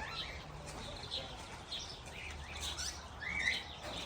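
Aviary birds chirping and whistling, many short calls overlapping, with one louder curling whistle about three seconds in.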